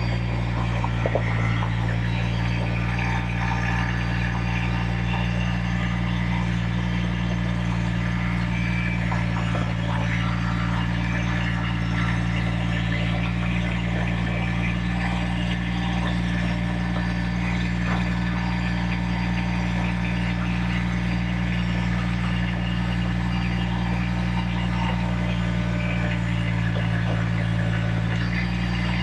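An engine running steadily at constant speed, with a few faint clicks over it.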